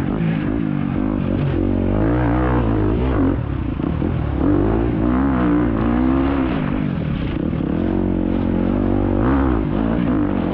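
Off-road racing dirt bike engine heard from the on-board camera, its revs repeatedly climbing and dropping as the throttle is worked on and off.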